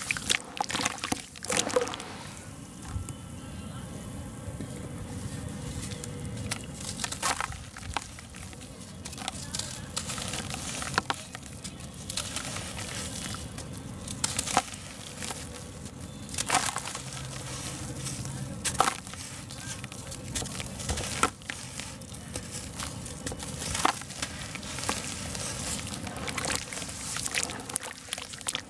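Hands squeezing and crumbling lumps of sand and cement in a basin of water: sloshing and squelching, broken by sharp crunches and splashes at irregular intervals.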